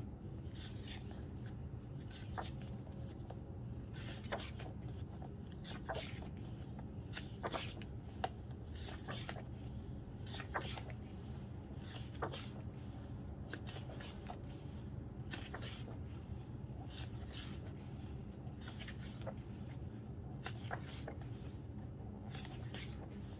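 Glossy photobook pages being turned one after another, with short papery swishes and soft taps every second or two over a steady low background rumble.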